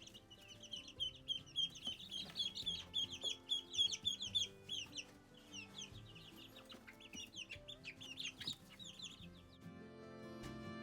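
Baby chicks peeping, many short high cheeps in quick succession and overlapping, thinning out and stopping about nine and a half seconds in. Quiet background music underneath.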